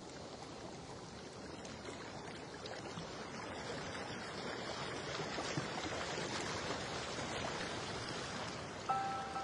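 Underwater rushing and hiss of water against a GoPro's housing, slowly growing louder. Just before the end, a chime-like tone of background music cuts in.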